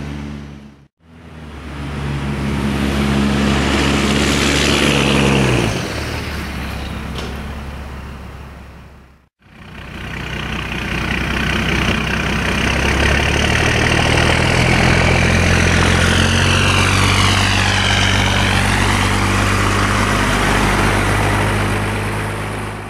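1993 Dodge PowerRam 250's 5.9-litre Cummins inline-six turbo diesel running, its pitch dropping about five seconds in, then running steadily and louder. The sound drops out briefly twice, and a high tone dips and rises again near the end.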